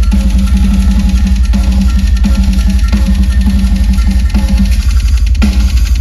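Metal drum kit played live through a concert PA: a fast, dense run of kick-drum hits under snare and cymbal strikes, with a loud accent hit a little over five seconds in.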